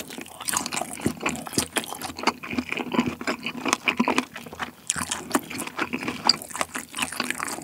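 Close-miked chewing of a mouthful of kielbasa sausage: wet, squishy mouth sounds with a dense run of small clicks and smacks.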